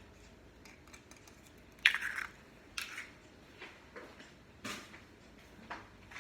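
Scattered light knocks and clinks of kitchen utensils against dishes and bowls, the sharpest about two seconds in, with a few smaller ones after.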